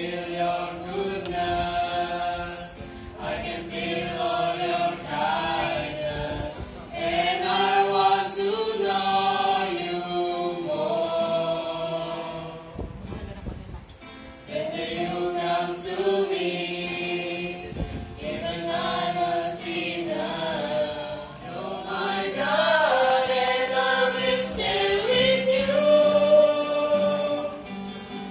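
Youth group of mixed boys' and girls' voices singing a gospel song together through microphones, accompanied by an acoustic guitar, with a short break between phrases about halfway through.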